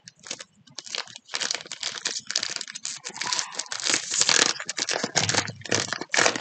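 Foil Pokémon card booster pack crinkling in the hands as it is torn open: a dense run of irregular crackling rustles.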